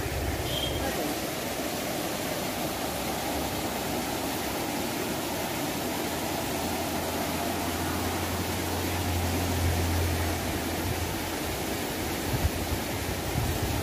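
Shallow river water flowing steadily over a concrete weir, an even rushing hiss, with a low rumble swelling in the middle. A few short knocks near the end.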